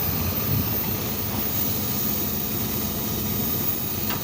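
Steady drone of running machinery with a low hum, unchanging throughout.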